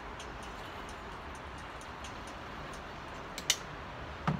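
A plastic water bottle handled after a drink: a sharp click about three and a half seconds in and a duller knock near the end, over a steady low background hiss.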